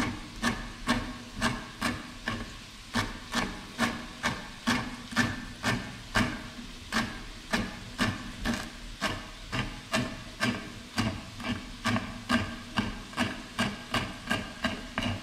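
Kitchen knife chopping fresh green herbs on a wooden cutting board: a steady, even run of knocks, about two or three chops a second.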